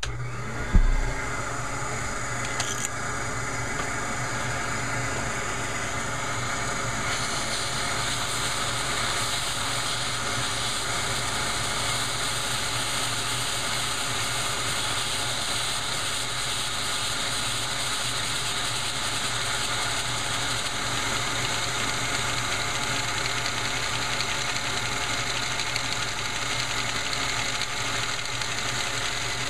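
Shop vacuum motor switching on about a second in, winding up in pitch and then running steadily. Its hose is driving a Lego inline four-cylinder engine, and the noise gets brighter about seven seconds in.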